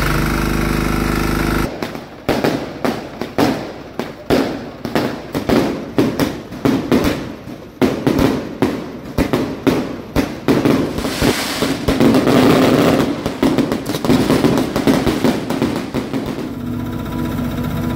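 Firecrackers and fireworks going off in rapid, irregular bangs for about fifteen seconds as the falla monument is set alight, with a hiss from a fountain of sparks partway through. A firefighters' portable water pump engine runs steadily at the start and again near the end.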